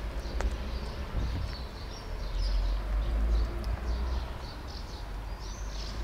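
Outdoor background: a steady low rumble with scattered faint bird chirps, and a single click about half a second in.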